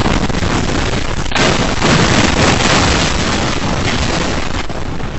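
Earthquake shaking a car workshop: a loud, continuous rumble with tools, parts and equipment rattling, clattering and crashing to the concrete floor, growing louder about a second in.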